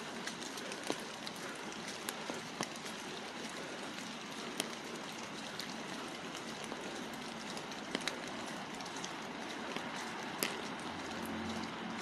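Steady rain falling on a forest floor thick with dead leaves, with scattered sharper ticks of single drops. A faint low hum joins near the end.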